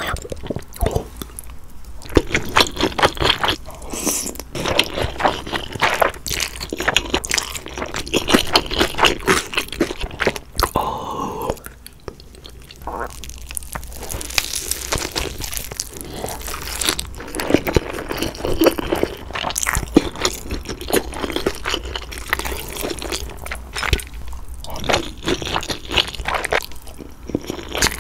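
Close-miked eating: biting into and chewing kimbap topped with chewy spicy jjolmyeon noodles, a dense run of sticky wet mouth clicks and smacks, with noodles sucked in near the end.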